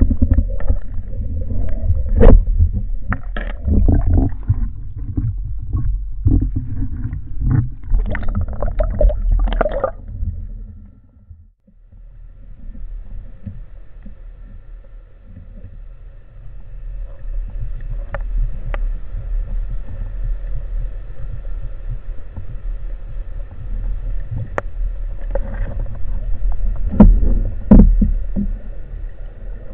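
Muffled knocks and scraping from loading a wooden rubber-band speargun underwater, its band and wishbone bumping against the barrel and the camera housing, for about the first ten seconds. After a brief lull comes a steady underwater hum with faint high steady tones, broken by a few sharp clicks, the loudest near the end.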